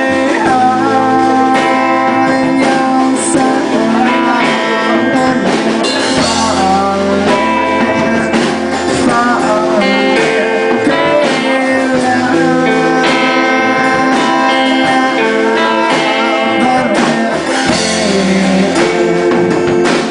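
Live band music led by guitar, loud and continuous.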